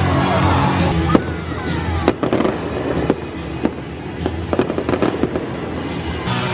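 Postgame stadium fireworks: falling whistles, then a string of sharp, irregular bangs and crackles. Stadium music under the opening stops about a second in.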